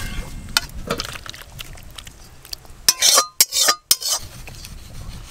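A metal spatula scraping and clinking against a metal wok (kadai) while a thick potato and pointed-gourd curry is stirred and scraped out. About three seconds in come several loud metal clanks that ring briefly, as the wok is tipped over a steel serving bowl.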